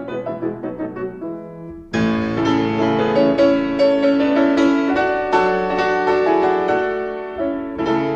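Solo piano background music playing a gentle melody. The notes thin out and soften in the first two seconds, then a fuller phrase with chords comes in about two seconds in.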